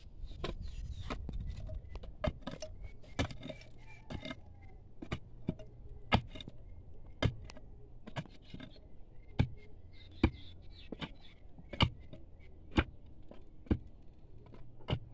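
A metal digging tool knocking and scraping against stones in rocky ground: sharp clinks and knocks at irregular intervals, roughly one to two a second, as stones are loosened by hand.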